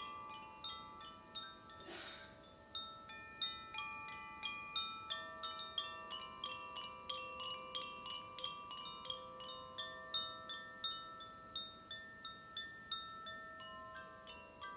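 Hand-played healing chimes ringing with clear, overlapping metal tones, restruck rapidly and unevenly so that several notes sustain at once.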